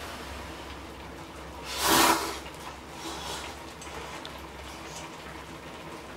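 Seafood ramen broth simmering in a pan on a portable gas stove, a faint steady bubbling hiss. One short, louder swell of sound comes about two seconds in.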